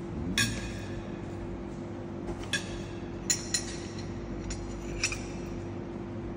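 A ceramic spoon clinking against a small ceramic bowl: five scattered, sharp clinks, each with a brief ring. A steady low hum runs underneath.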